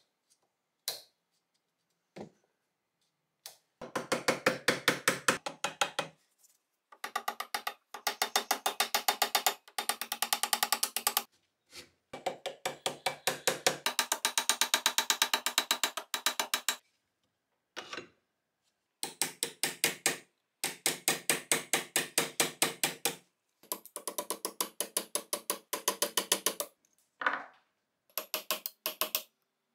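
Brass-faced hammer tapping rapidly on a steel punch against the rusted slide of a Colt Model 1903 pistol clamped in a vise, about eight sharp metallic taps a second, in runs of two to four seconds with short pauses between. A few single clicks in the opening seconds.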